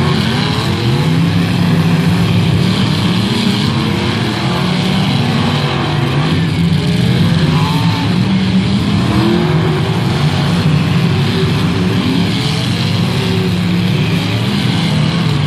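Several off-road derby cars' engines revving hard and easing off, overlapping one another as the cars race around a dirt track; loud and continuous.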